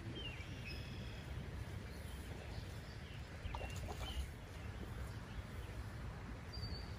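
A few short, high bird chirps scattered over a steady low outdoor rumble.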